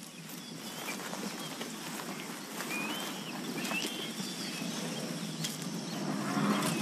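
Savanna bush ambience: a steady rustle of dry vegetation with scattered clicks, and a few short, wavering bird calls about two to four seconds in.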